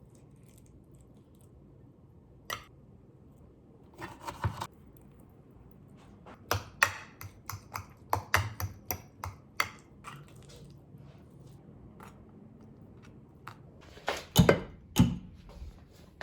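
A scatter of light, irregular clicks and taps, with a few louder knocks near the end.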